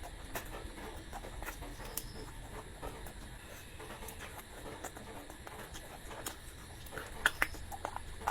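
Close-miked chewing and mouth sounds of a person eating: soft wet smacks and small clicks, with a few sharper clicks about seven seconds in.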